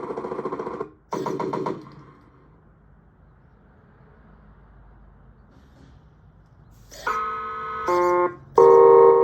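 Horn sounds from the electronic sound unit of a 1/14-scale RC Volvo A40G articulated dump truck, played through its small speaker as the horn options are cycled through. There are two short buzzy horn blasts, then a pause with faint hiss. From about seven seconds in comes a run of multi-tone horn blasts, each a chord of steady notes, stepping from one pitch to another.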